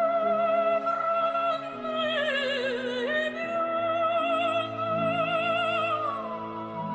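Slow operatic music: one high line held with wide vibrato over sustained lower accompaniment. The melody dips and returns about two seconds in, then glides down near the end.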